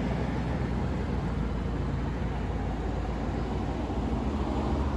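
Audi SQ8's twin-turbo V8 idling steadily, a low even rumble.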